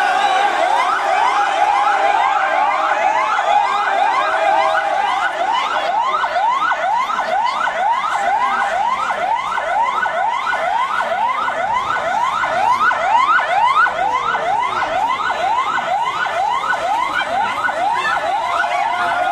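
Ambulance siren sounding a fast yelp: rapid rising pitch sweeps, a little over two a second. It holds a steady tone at the start and switches back to it near the end.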